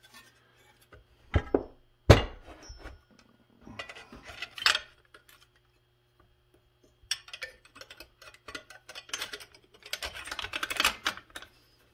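Hands handling and fitting chainsaw housing and handle parts: scattered clunks, taps and rattles of the parts against each other and the bench, with two sharp knocks about a second and a half and two seconds in.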